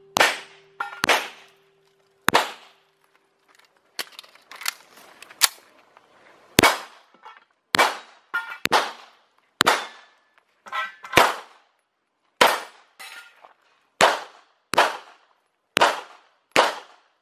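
Handgun fired in quick pairs and short strings, about twenty shots, each a sharp crack with a short echo trailing off.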